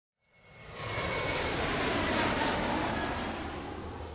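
Jet aircraft passing overhead: a rushing engine noise that swells in over the first second, then slowly fades.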